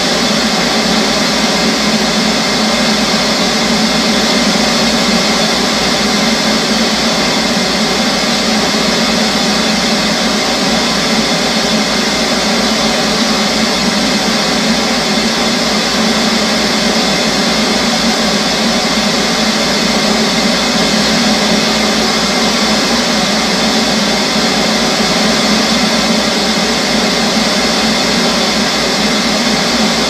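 Television static: a steady, even hiss that never changes, with a low buzz underneath.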